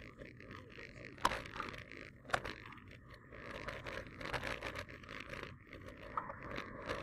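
Riding noise of a bicycle picked up by a camera mounted on the bike: a steady rush of tyres and air with irregular rattling clicks, and two sharp knocks in the first few seconds.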